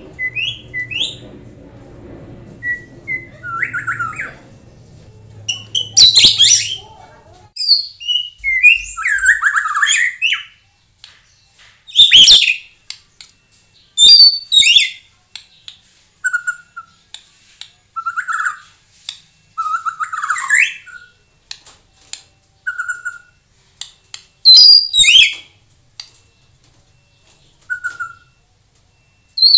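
White-rumped shama singing: loud whistled phrases that glide up and down, broken by a few sharp, very loud snapping notes and short lower whistles repeated through the second half. A faint low hum runs under the first several seconds.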